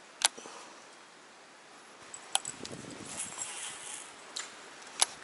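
deps Toddrat bladed surface lure being twitched on the water: a few sharp clacks of its blade knocking against the body, spaced one to two seconds apart, with a short splashy rush in the middle.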